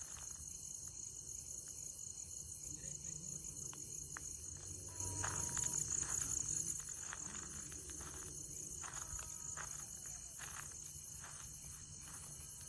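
Night insects (crickets) chirping in a steady, high, pulsing drone, with footsteps and light clicks on a dirt forest path.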